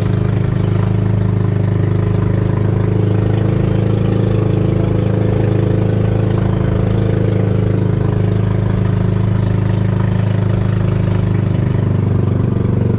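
Engine of a motorized outrigger boat (banca) running steadily at constant speed, a loud even drone with no change in pitch.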